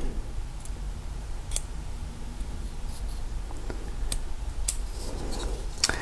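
A handful of light, scattered clicks from handling a brass Yale mortise cylinder and its plug follower, over a low, steady hum.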